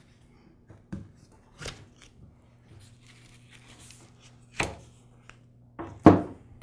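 Plastic clips on a lawn mower grass bag being pried off its frame by hand: a few sharp clicks and knocks, the loudest two about four and a half and six seconds in, between soft rustling of the mesh fabric bag.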